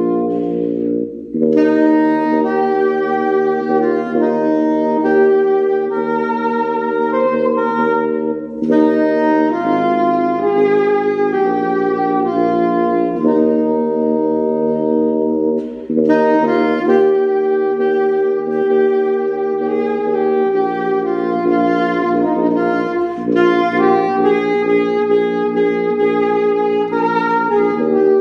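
Soprano saxophone playing a slow hymn melody in long, held notes, with short breaks for breath about a second in, at about eight and a half seconds, and near sixteen seconds.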